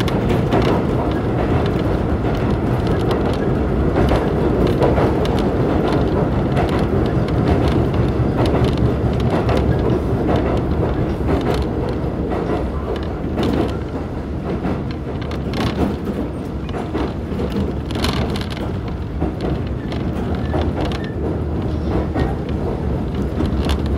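Electric commuter train running at speed, heard from inside the passenger car: a steady rumble of wheels and running gear with short clicks and knocks scattered through it, more of them in the second half.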